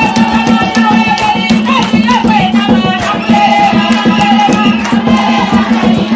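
Traditional Zambian drum music: tall hand drums beating a steady rhythm with a rattle, under voices singing.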